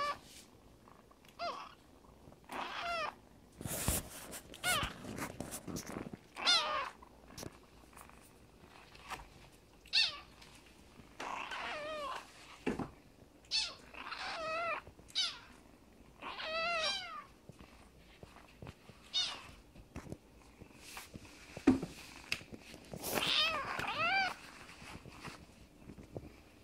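Young kittens meowing over and over in high-pitched mews, a call every second or two, some short and some drawn out. A single sharp knock sounds late on.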